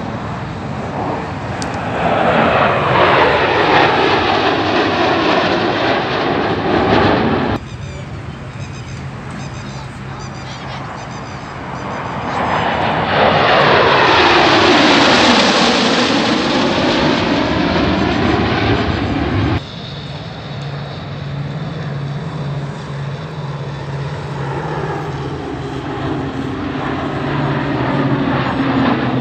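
Military jets flying low overhead in formation, heard twice: each pass swells to a loud jet noise with a sweeping whoosh as they go over, then cuts off suddenly. From the last third on, the steadier drone of turboprop aircraft with a low hum.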